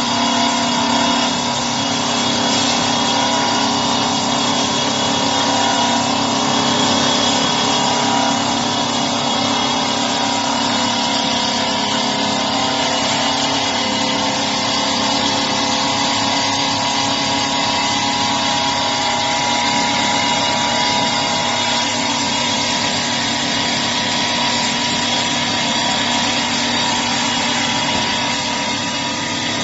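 CNC wood-turning lathe running: a steady machine hum and whine with several fixed tones that hold unchanged throughout.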